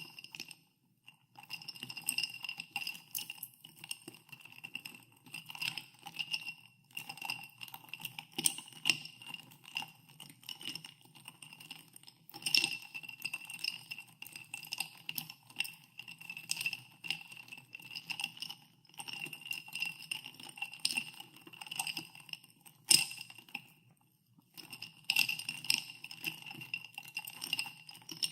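Ice cubes stirred in a glass of soda water, clinking against the glass again and again so that the glass keeps ringing, with a few short pauses in the stirring.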